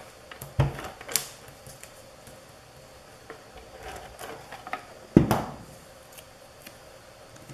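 Light clicks and taps of small craft pieces and tools being handled, with one louder knock about five seconds in.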